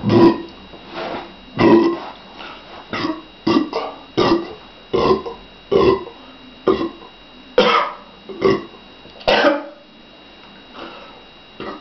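A woman burping over and over: about a dozen short burps, roughly one a second, stopping about ten seconds in. She is bringing up the gas from a litre of fizzy water she has drunk.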